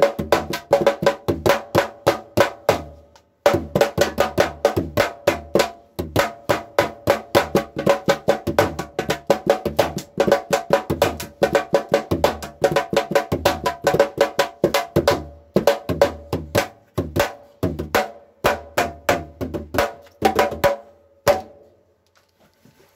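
Bata drum, a laced double-headed drum, struck by hand in a quick Ijooge rhythm, each stroke leaving a ringing mid-pitched tone. The playing breaks off briefly twice in the first six seconds and stops shortly before the end.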